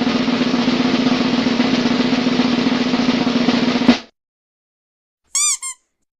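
Drum roll sound effect, held steady for about four seconds before it cuts off. About a second and a half later come two short chirps.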